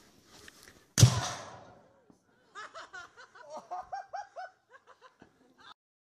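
A homemade black-powder bowling-ball cannon fires once, about a second in: a single loud boom that dies away over about a second. It is followed by laughter.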